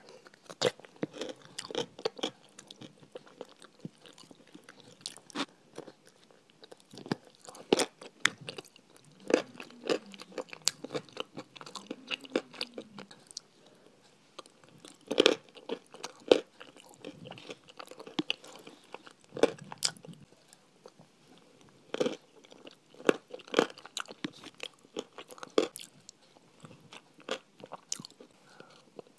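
Close-miked eating of a crunchy white dairy food from a plastic tub: sharp crunching bites and chewing, irregular, one every second or so, with the spoon scraping and tapping in the tub.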